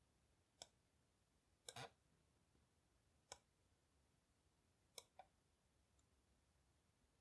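A handful of faint, short computer mouse clicks, spaced a second or more apart, with a close pair near the end, in near silence.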